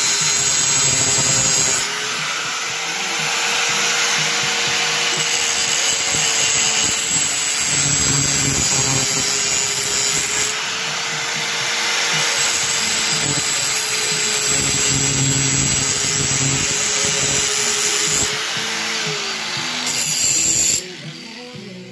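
Skil angle grinder grinding the steel edge of a splitting maul: a steady motor whine under a harsh hissing grind that shifts as the pressure on the disc changes. It cuts off suddenly about a second before the end, leaving music playing.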